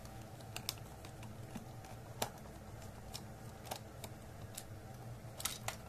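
Phillips screwdriver working screws out of a smart power strip's casing: scattered small clicks and ticks, with a few close together near the end.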